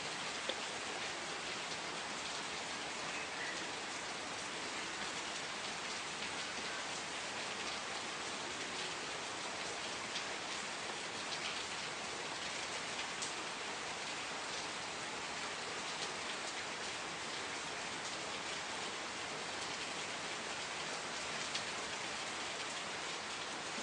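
Steady rain falling, an even hiss with scattered small drop ticks on a hard surface.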